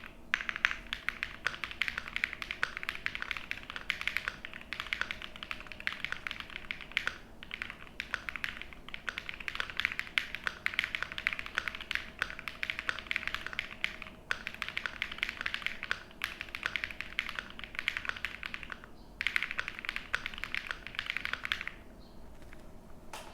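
Typing on a Noir Z2 mechanical keyboard with lubed Aflion Blue Sky switches, a PC plate, a Poron gasket mount with all foams, TX stabilizers and Noir Luminous keycaps. Keystrokes come in a fast, steady stream with a few short pauses and stop shortly before the end.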